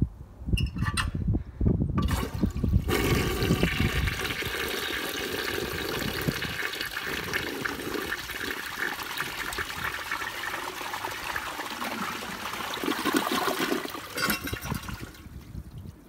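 A 1960 Standard Cadet toilet flushing: a few knocks at first, then water rushes loudly and evenly through the bowl for about ten seconds before fading near the end.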